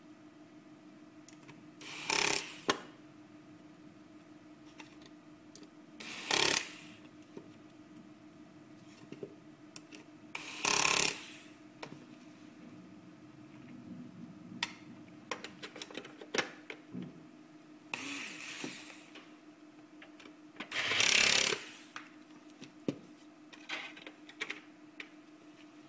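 Short bursts of an electric screwdriver driving screws into a POS terminal's casing, five in all, with clicks and knocks of parts being handled between them over a steady low hum.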